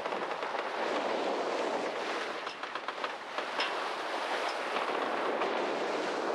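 Steady rush of water and wind around a sailboat under way offshore, with a few short clicks from the boat.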